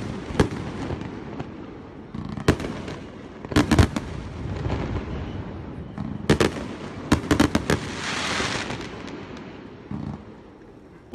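Aerial firework shells bursting overhead: sharp bangs, often several in quick succession, every one to three seconds. About eight seconds in there is a spell of hissing, and one last single bang comes near the end.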